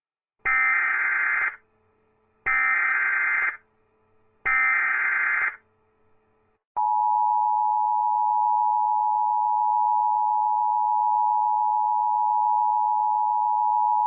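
Emergency Alert System SAME header for a Civil Danger Warning: three buzzy digital data bursts of about a second each, two seconds apart, then the EAS two-tone attention signal (853 and 960 Hz together) starts about seven seconds in and holds steady. The header encodes the alert, and the attention tone announces that the voice message follows.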